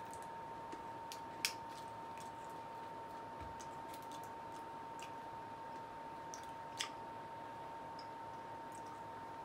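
Faint steady high whine with a few scattered small clicks; the clearest comes about a second and a half in.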